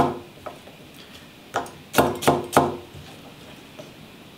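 Chinese cleaver chopping yu choy stems on a wooden butcher block: one chop at the start, then a run of four quick chops in the middle, each a sharp knock of the blade into the wood.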